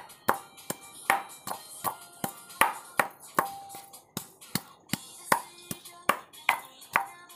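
Wooden pestle pounding a wet spice paste in a metal mortar bowl: a steady beat of sharp knocks, about two and a half a second, each with a short metallic ring from the bowl.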